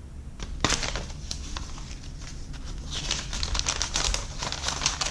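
Folded paper leaflets rustling and crinkling as they are handled and unfolded, with a thick run of sharp paper crackles from about three seconds in.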